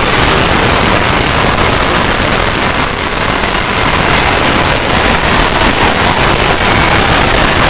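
Loud, harsh, static-like noise that cuts in abruptly and holds steady with no clear pitch.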